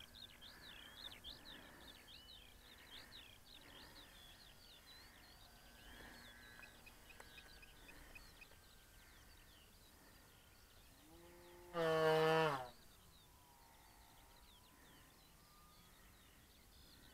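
Faint outdoor ambience with many rapid bird chirps. About twelve seconds in comes a single loud, pitched call lasting about a second, which starts and stops abruptly and drops in pitch at its end.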